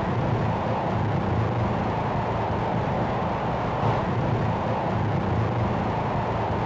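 Noise-music drone made with a Behringer mixer: a dense, steady wash of noise with a low rumble beneath and a harsher hiss above. A soft accent about four seconds in.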